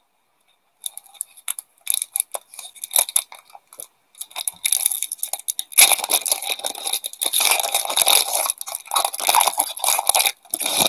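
Foil wrapper of a 1997-98 Upper Deck SPx hockey card pack being torn open and crinkled by hand: a few scattered crackles at first, then about five seconds of dense crinkling and tearing.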